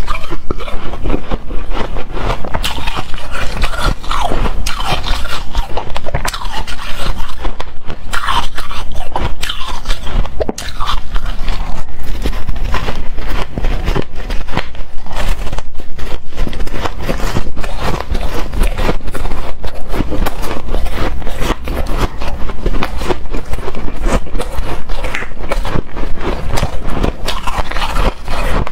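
Hard, frosty shaved ice being bitten and chewed close to the microphone: dense, irregular crunching with occasional short squeaks.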